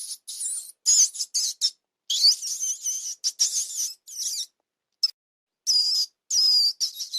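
High-pitched squeaking calls from a small animal, in a quick series of short wavering bursts broken by abrupt gaps.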